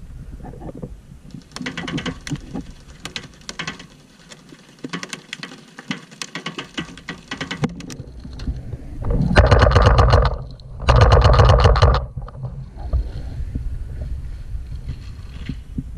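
Paintball markers firing in rapid strings of shots, with scattered pops through the first half and two loud bursts of rapid fire about nine and eleven seconds in.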